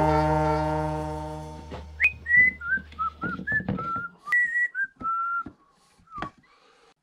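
A person whistling a short, wandering tune, one clear note at a time, among a few sharp knocks of wooden tool handles being taken down from wall racks. Background music fades out in the first second or two.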